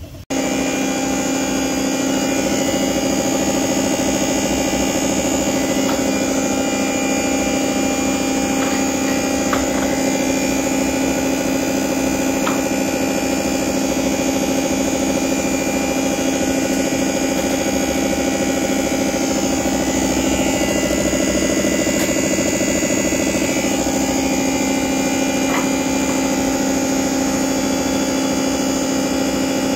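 Common-rail diesel injector test bench running with an injector mounted for a full-load delivery test: a loud, steady machine hum with a strong low tone from the bench's motor-driven pump, with a few faint clicks.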